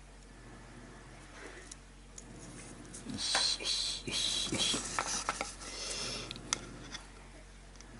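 Rustling and a quick run of light clicks and knocks from handling a small wooden jig and its copper-wire rigging, starting about three seconds in and dying away about a second before the end.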